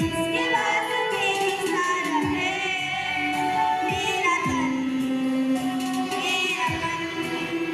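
Indian-style song: a woman's voice singing long, wavering notes over instrumental backing, with low notes sliding downward every two seconds or so.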